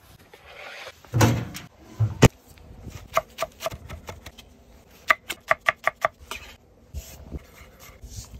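Chef's knife chopping fresh parsley on a wooden cutting board: sharp knocks of the blade on the wood, with a quick run of about six chops in a second midway.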